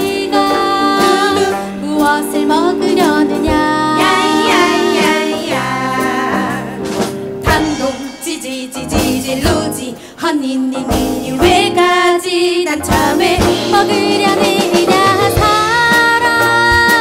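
Live fusion gugak song: female voices singing a pop-style tune over gayageum (Korean zither) with a band of drum kit, keyboard and bass guitar.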